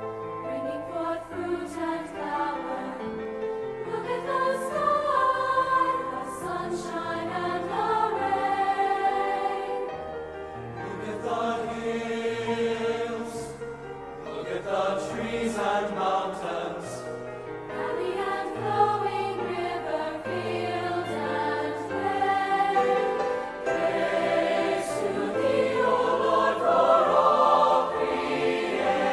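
A choir singing a hymn, several voices holding and moving between sustained notes.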